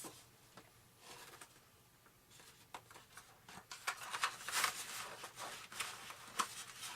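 Small foam and plastic model-airplane parts being handled and test-fitted on a workbench: light rustling and quick clicks, faint at first, then busier from about two seconds in.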